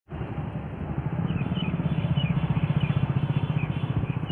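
A steady low rumble that pulses rapidly, like a nearby engine running or wind on the microphone, with faint high chirps of small birds repeating through it.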